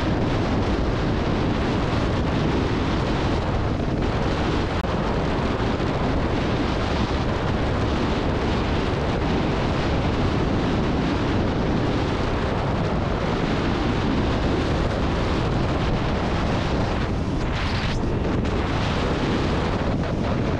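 Steady wind rush over the microphone of a motorcycle riding at road speed, with the 2021 Yamaha XSR900's running and tyre noise underneath.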